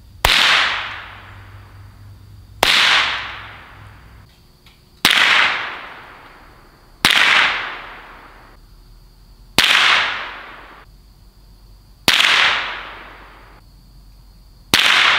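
Seven single shots from a Ruger 10/22 .22 LR semi-automatic rifle, fired at a steady pace about two and a half seconds apart. Each sharp crack fades out over about a second of echo.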